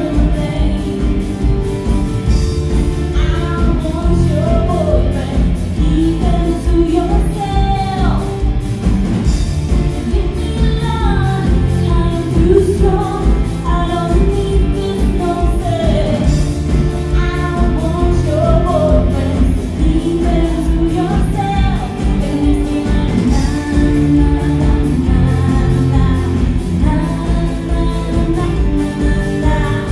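Live pop-rock band playing a song: a woman singing the lead over strummed acoustic guitars, electric guitar, bass guitar and a steady drum beat with cymbals.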